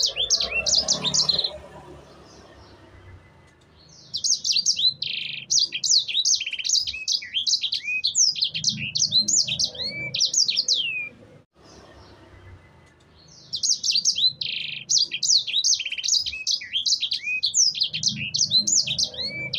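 Sanger bird singing in long phrases of rapid, high, sweeping chirps, with two short pauses between phrases.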